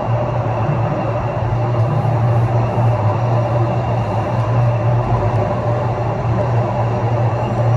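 Steady low rumble of a moving vehicle, with an even low hum and no breaks.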